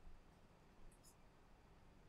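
Near silence: faint room tone, with a couple of faint light clicks about a second in from a smartphone being handled.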